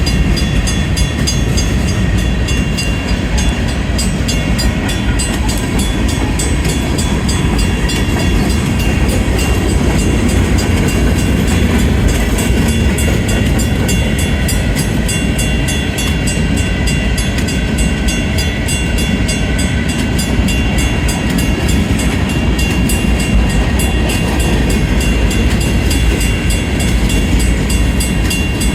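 Union Pacific grain train's hopper cars rolling slowly past: a steady, loud rumble of steel wheels on the rails.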